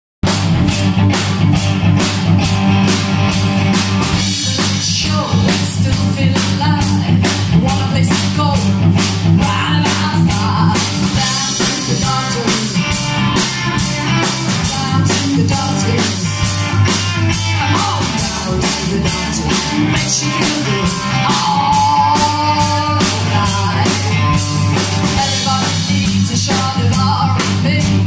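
Live rock band playing: a woman singing over electric guitars and a drum kit keeping a steady beat.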